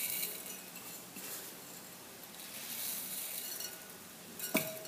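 Chocolate vermicelli sprinkles rustling softly as a hand scoops them from a paper-lined bowl and presses them onto the cream-coated side of a cake, the loose ones falling back onto the paper; a sharp tap near the end.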